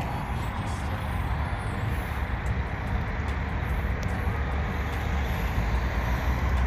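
Steady rumble of vehicle traffic and running engines.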